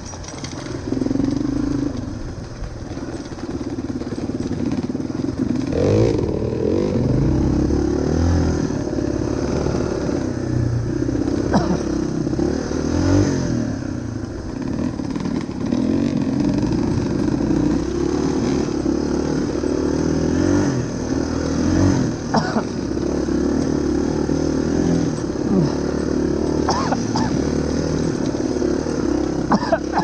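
Yamaha Serow 225 trail bike's single-cylinder four-stroke engine running under way, its revs rising and falling as the throttle is opened and closed on a rough dirt track.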